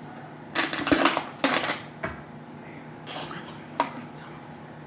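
Clattering, rustling handling noises: two bursts of about half a second each in the first two seconds, then two shorter knocks.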